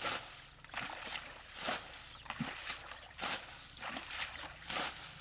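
Muddy pond water splashing again and again as a bucket scoops and throws it and feet and hands churn the shallows. The splashes come quickly, more than one a second.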